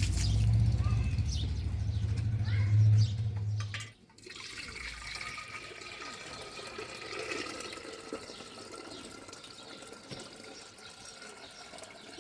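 A loud low rumble for about four seconds, then a sudden cut to a steadier, quieter sound of running water.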